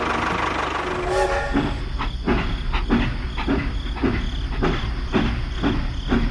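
A small motor-driven machine running with a low hum and an even, rhythmic clacking about three times a second, which starts about a second and a half in.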